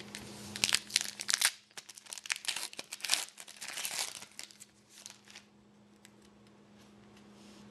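Trading card pack wrapper being torn open and crinkled by hand, a dense run of crackling for about five seconds that then stops.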